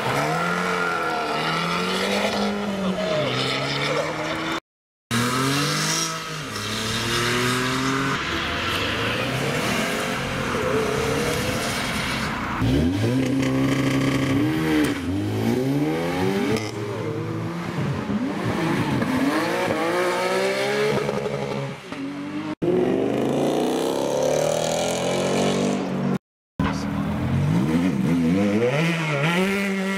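Performance cars accelerating hard away one after another, their engines revving up and dropping back at each gear change, with abrupt cuts between cars. A yellow Abarth 500 hot hatch pulls away first, then a dark Audi A3-based hatchback, and a Ferrari F430 V8 is revving near the end.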